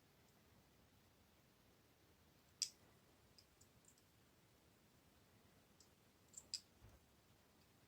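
Faint, sparse clicks of needle-nose pliers gripping and bending a paper clip as it is straightened: one sharper click about two and a half seconds in, a couple more near the end, and small ticks between.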